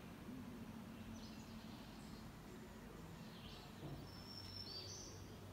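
Quiet woodland ambience with wild birds calling: a few short, high chirps and whistled phrases, one of them a held note that steps up in pitch near the end. A faint steady low hum runs beneath.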